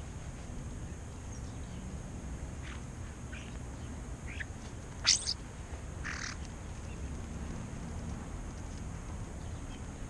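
European starlings calling: a few short faint calls, then a loud sharp squeal about halfway through, followed about a second later by a harsh rasping call.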